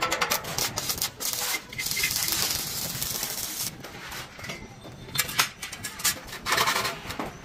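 Irregular scraping and rubbing on a hard surface: a run of quick strokes, a longer continuous scrape of a few seconds, then two short scrapes near the end.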